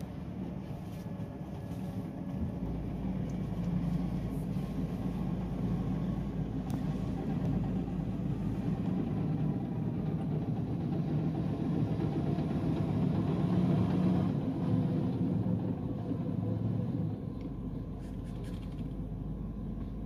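Diesel engine of a Komatsu D85SS crawler bulldozer running as it drives close past, over the steady running of a Hitachi hydraulic excavator. The low rumble swells a couple of seconds in and drops back about three seconds before the end.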